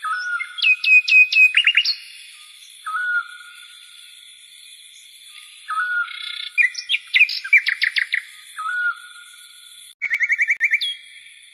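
Small birds singing: a short whistled note repeated every few seconds, between bursts of rapid chirps and trills, over a faint steady high-pitched hum.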